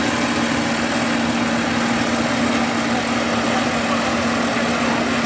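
Combine harvester's engine running at a steady speed, a constant mechanical drone with an even hum.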